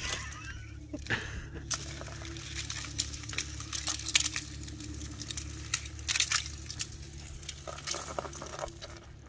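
Ice crackling and crunching in irregular sharp snaps, a few a second, over a steady low hum.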